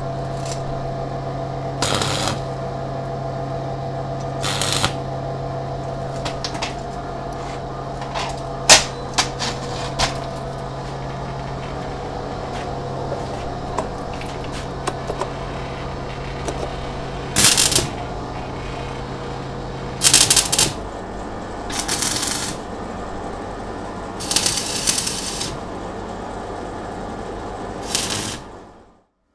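Welding machine humming steadily, broken by a series of short crackling bursts as small welds are laid. The hum shifts partway through and cuts off suddenly near the end.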